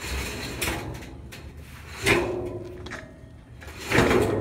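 Steel 55-gallon drum rolling and sliding down a metal loading ramp, with a hollow metallic clank that rings on about two seconds in and a swelling rumble into a second clank near the end as it comes down the ramp.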